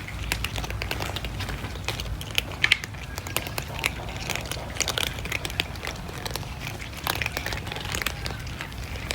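Cats chewing food: a rapid, irregular run of small crunches and clicks.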